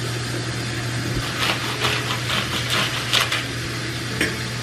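A metal kitchen utensil scraping and knocking against a container in a quick series of short strokes, with one more stroke near the end, over a steady low hum.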